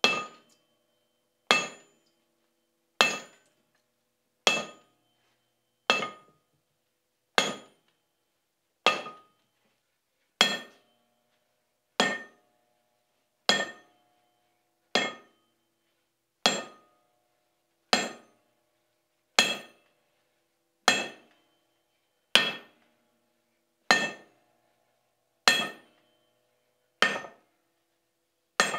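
Hammer blows on a red-hot steel disc lying on a swage block, dishing it into a cup. The strikes come evenly, about one every second and a half, each a sharp ringing clank that dies away quickly.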